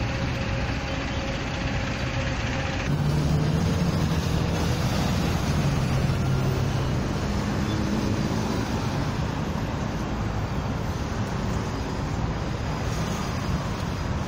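Steady city traffic: buses and cars running along a busy avenue, with a low engine drone that is loudest a few seconds in.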